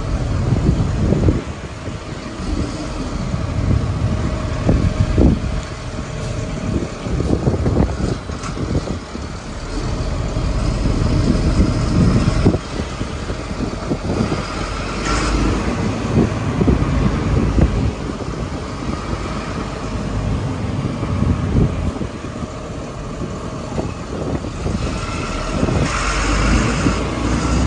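Motorbike ride through busy street traffic: engine and road noise, with wind rumbling in gusts on the microphone.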